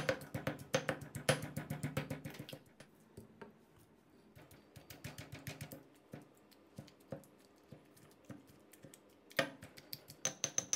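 Granite pestle pounding roasted chillies, shallots, garlic and tomato in a granite mortar (krok), several strikes a second, grinding them to a paste for nam prik. The strikes grow fainter partway through and louder again near the end. Background music plays in the first few seconds.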